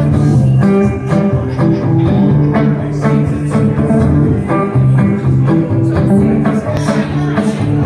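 Live acoustic band playing an instrumental passage: acoustic guitars strumming in a steady rhythm over sustained bass notes, in a blues and Americana style.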